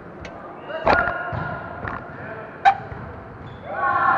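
Volleyball being struck by players' hands during a rally: a few sharp slaps about a second apart, the loudest near the end, ringing in a large gym hall. Players shout calls around the hits and near the end.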